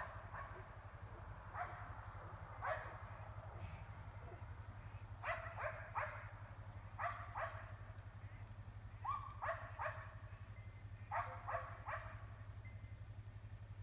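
Dogs barking over and over, in short runs of two or three barks every second or two, over a steady low hum.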